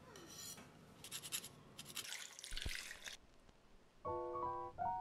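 A knife sawing through a pound cake on a wooden cutting board: a few scratchy strokes through the crust, then a soft thump. Piano background music begins about four seconds in.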